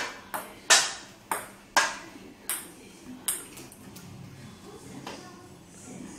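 A run of sharp, light clicks at uneven intervals, about seven in the first three and a half seconds, then only faint ones.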